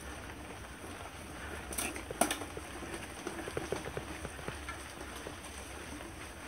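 Mountain bike rolling over a dirt singletrack: tyres crunching on the trail with small rattles and ticks from the bike, and two sharper clicks about two seconds in.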